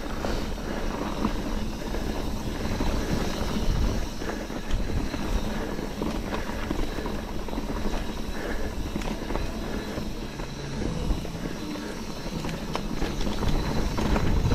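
Mountain bike rolling along a dirt trail: steady tyre and trail noise with many small rattles and clicks from the bike, and wind on the microphone.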